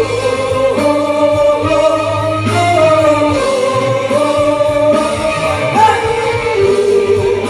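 A live band playing a slow ballad, with a violin bowing a sustained, gliding melody over the accompaniment.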